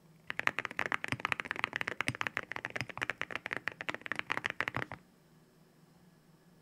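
Fast typing on a white compact mechanical keyboard: a dense run of rapid key clacks that stops suddenly about five seconds in.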